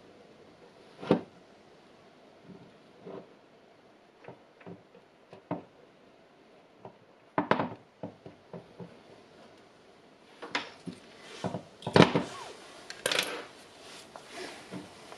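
Scattered small clicks and taps of needle-nose pliers and a soldering iron against a battery pack's circuit board and a wooden bench while the board is desoldered, with a cluster of louder knocks and clatters in the last few seconds as the tools are set down.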